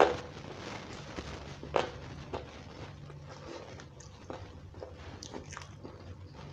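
Close-miked eating by hand: wet mouth smacks and chewing of rice and chicken curry, with scattered sharp smacks, the loudest at the start and another about two seconds in, over a low steady hum.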